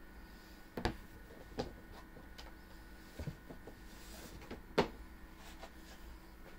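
A few light knocks and handling noises of a folded cardboard game board being taken out of its box and unfolded, the loudest knock just under five seconds in, over quiet room tone.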